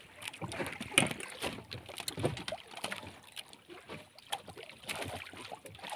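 Sounds of a small wooden outrigger boat at sea: irregular light knocks and clicks over faint wind and water noise, with one sharper knock about a second in.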